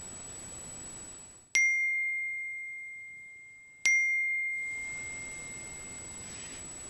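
A bell-like chime struck twice, a bit over two seconds apart. Each strike is one clear ringing tone that fades slowly, over a steady hiss.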